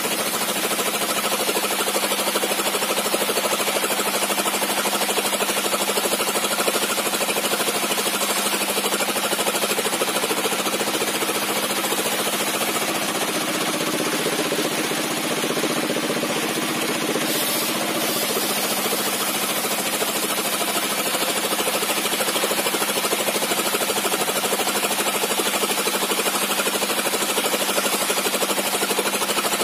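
Bench circular sawmill with a 60 cm zigzag-set blade running and ripping a squared log lengthwise into 2-inch boards: a loud, steady mechanical clatter with a fast knocking rhythm.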